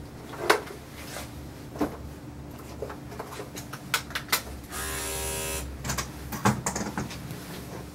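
Electric dog-grooming clippers running with a steady hum, with scattered sharp clicks and a brief louder buzz about five seconds in.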